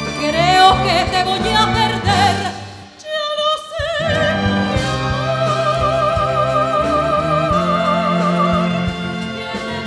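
Soprano singing with wide vibrato over a symphony orchestra. The sound dips briefly about three seconds in, then she holds a long note from about five seconds to nine.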